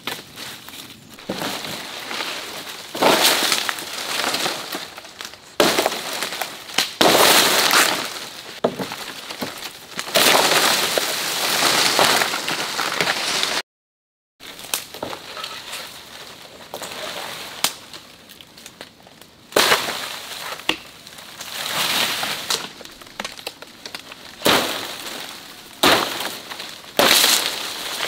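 Dry leaves, twigs and palm fronds crunching and rustling in irregular bursts as someone pushes through jungle undergrowth, with a brief cut to silence about halfway.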